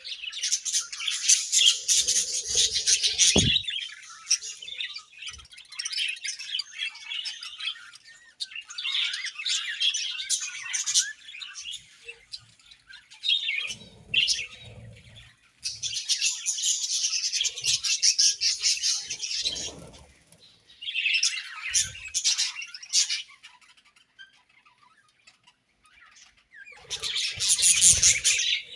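A colony of budgerigars chirping and chattering in several busy bouts with short quieter gaps between, with an occasional squawk and a few low thumps.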